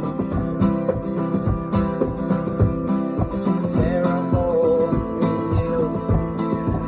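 Acoustic guitar playing with a cajon keeping a steady beat underneath.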